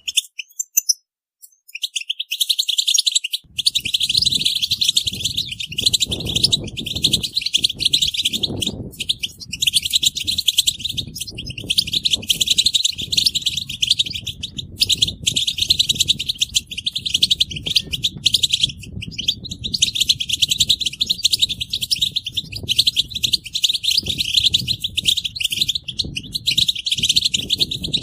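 European goldfinches twittering in a dense, almost unbroken chorus of fast chattering calls. These are the excited group calls used to stir a silent male into song. The chorus starts about two seconds in, after a brief silence, with only short pauses afterwards.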